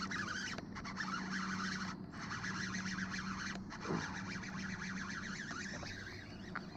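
Bow-mounted electric trolling motor running with a steady low hum, over a faint hiss.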